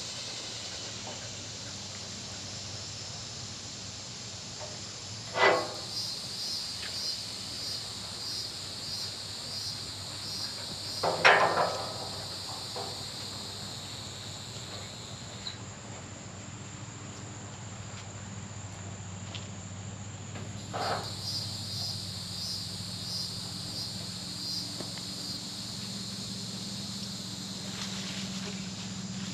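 Insects chirring in a steady high pulse of about two beats a second, broken by three sharp knocks, the loudest in the middle.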